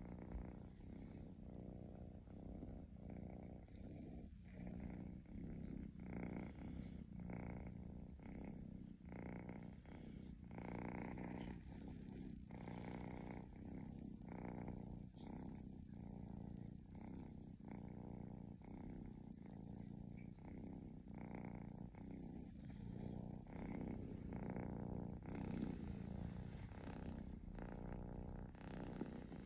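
Domestic cat purring steadily while being stroked, the purr swelling and easing in regular waves with each breath.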